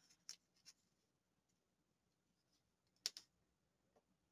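Near silence, with faint rustles of washi tape and paper being pressed down by hand and one short soft click about three seconds in.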